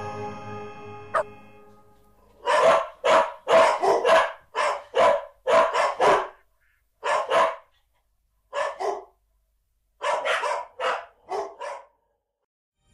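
A dog barking in quick runs of sharp barks, about twenty in all, grouped with short pauses between the groups.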